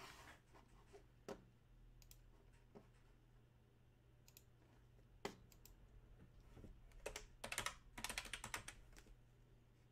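Faint clicking of a computer keyboard and mouse: a few scattered clicks, then a quick run of typing about seven to nine seconds in. A faint low hum runs underneath.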